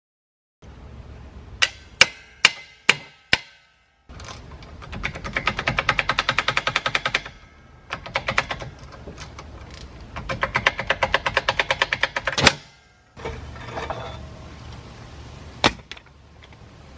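Ratchet wrench clicking rapidly in two runs of a few seconds each as the mounting bolts of a trailer tongue jack are turned. Five sharp ringing metal knocks come before the first run, and single sharp clanks fall at the end of the second run and near the end.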